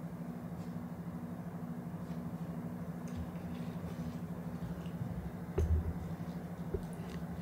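Quiet room tone with a steady low hum, a few faint ticks, and one soft low thump a little over five seconds in.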